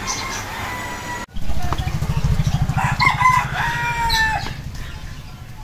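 A rooster crowing, its call ending in a held note that falls away near the end, over a loud low rumble that starts about a second in.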